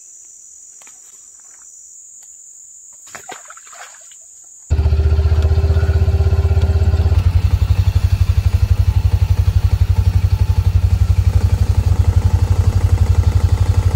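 Insects buzzing steadily with a few light clicks. About five seconds in, the sound cuts to a side-by-side utility vehicle's engine running loud and low with a rapid, even pulsing.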